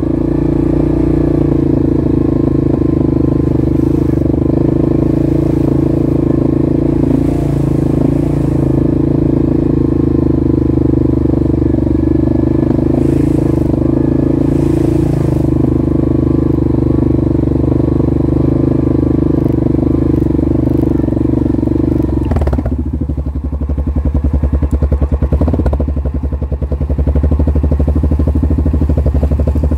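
ATV engine running steadily under way on a dirt trail, then the revs drop sharply about three-quarters of the way through as it slows to a low, pulsing idle.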